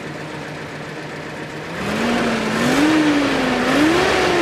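1978 Datsun 620 pickup's 2.0-litre L20B four-cylinder engine idling smoothly, then revved from about two seconds in: the pitch climbs, dips briefly and climbs again before easing back toward idle.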